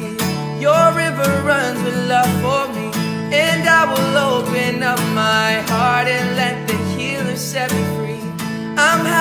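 A male voice singing a slow song while strumming an acoustic guitar, solo.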